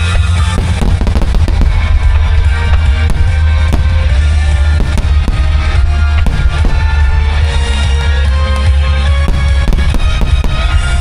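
Fireworks bursting in many sharp reports over loud music with a heavy, steady bass.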